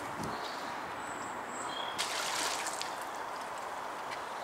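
Water trickling and splashing, with a brief louder rush of water about two seconds in. A few faint high chirps come before it.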